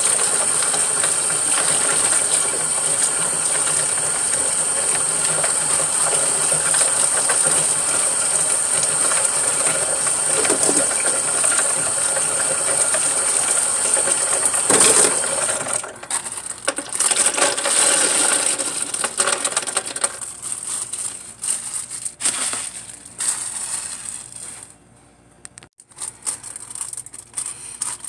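Kitchen tap water running steadily into a sink and splashing into a plastic tub while lip gloss tubes are washed under it. About halfway through the flow is shut off, leaving scattered splashes and small clicks and knocks of the plastic tubes being handled.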